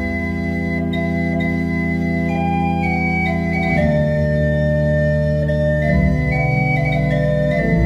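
Background organ music: slow, sustained chords held for a few seconds each, with the harmony changing about four and six seconds in and again near the end.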